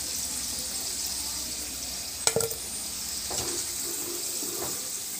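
Hot oil sizzling steadily as stuffed dough parcels (kumbalanga pathiri) deep-fry in a steel pan, with a single sharp click a little over two seconds in.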